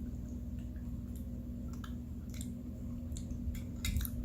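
Close-up eating sounds: wet chewing of curry chicken and rice with scattered small clicks, which come quicker near the end.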